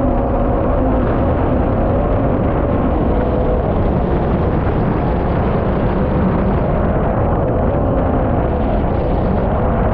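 MotoJet mini jet boat running at speed, its Yamaha MR-1 1.1-litre four-stroke engine and water jet giving a loud, steady rush with a running engine tone. The engine tone sinks into the rush in the middle and comes back near the end.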